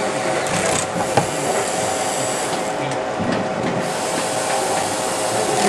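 A steady background hum and hiss, with a sharp click about a second in and a few fainter ticks as fingers work the metal CF card door and carrier out of the rear slot of a compact fanless computer.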